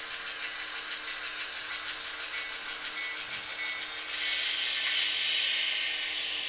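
HO-scale model diesel locomotive running light, its sound decoder playing a diesel engine sound with a steady hum and hiss through the model's small speaker. A louder hissing swell comes in about four seconds in.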